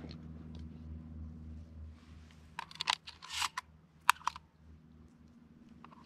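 Several sharp clicks and rustles of handling close to the microphone, in two clusters about two and a half and four seconds in, over a low steady hum.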